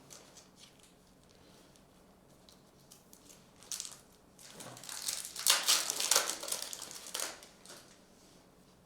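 Crinkling and rustling of a foil trading-card pack wrapper being handled and opened: a short rustle about four seconds in, then a longer burst of crinkling for about two seconds.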